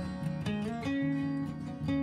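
Background music led by a plucked acoustic guitar, with notes changing every fraction of a second.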